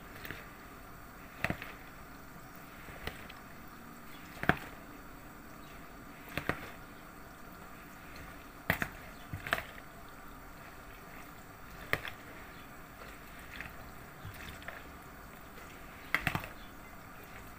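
A metal slotted spoon stirring yogurt through a pasta salad in a ceramic bowl: soft wet mixing, with a sharp clink of spoon against bowl every second or two.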